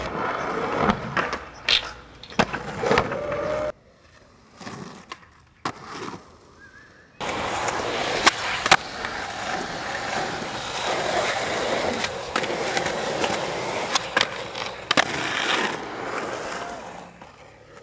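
Skateboard wheels rolling over rough asphalt and concrete, cut through by sharp pops and slaps of the board hitting the ground. The rolling drops away for a few seconds about four seconds in, then comes back close and loud.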